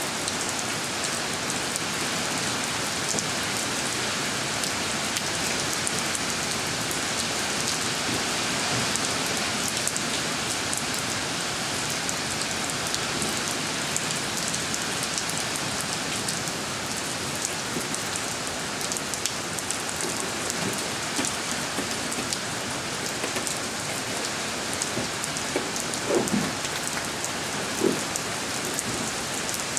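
Steady rain falling on a wet concrete driveway and puddles, with two brief knocks near the end.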